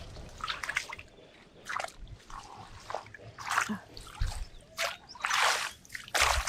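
Hands splashing and sloshing in shallow muddy water, in irregular bursts, the loudest about five seconds in.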